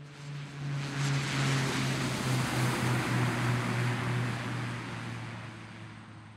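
Jet airliner passing close by: a broad rush of engine noise swells for about two seconds and then slowly fades, over a low steady hum that dips slightly in pitch as it goes past.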